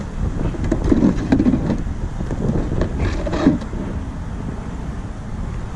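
Wind rumbling on the microphone, with scuffs and light knocks from the plastic RC jump ramp being handled on concrete. The scraping is loudest about a second in and again around three and a half seconds.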